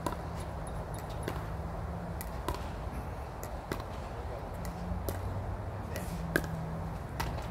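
Pickleball paddles striking a plastic pickleball and the ball bouncing on the court: sharp pops coming irregularly, about one a second, with the loudest about six and a half seconds in.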